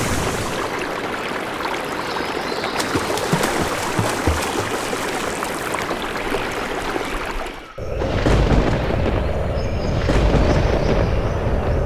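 Heavy rain hissing down in a forest storm, with crackles and booms of thunder. About eight seconds in the rain cuts off abruptly and a deep low rumble takes over.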